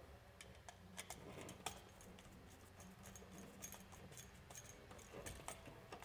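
Faint, irregular clicks and ticks of a screwdriver working the terminal screw of a three-way switch as the red traveler wire is fastened, over a faint low hum.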